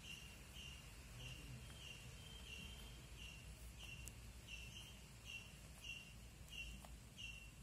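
Faint animal chirping: short high chirps repeated evenly, about three every two seconds, over a faint low hum.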